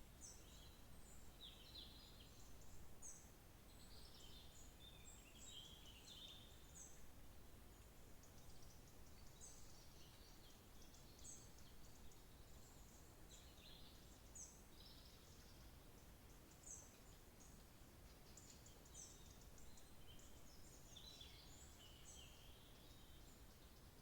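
Faint songbirds chirping and trilling, many short high calls overlapping over a steady low background hiss.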